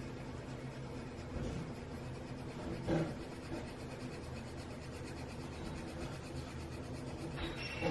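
Derwent colourless burnishing pencil rubbing in small circles over layers of coloured pencil on paper: a faint, continuous scratchy scribbling, with a couple of brief louder scrapes about a second and a half and three seconds in, and again near the end. A low steady hum sits underneath.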